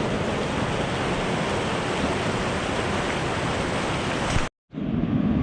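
Waterfall in heavy spring-runoff flow, rushing with a steady, even roar. The sound cuts out abruptly about four and a half seconds in, then a similar steady rush resumes.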